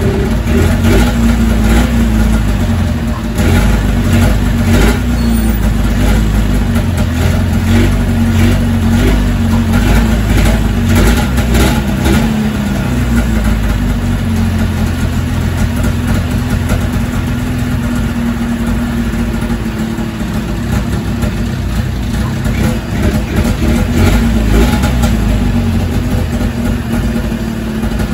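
Ski-Doo Formula Plus's Rotax 583 two-stroke twin running steadily at idle, with a few brief rises in revs near the start and again about ten seconds in. It is idling evenly now that a clogged pilot jet on the carburettor has been cleared.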